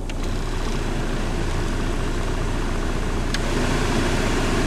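Mazda 626's 2.0-litre FS four-cylinder engine idling steadily after a cold start, with little rattle. There is one short click about three seconds in.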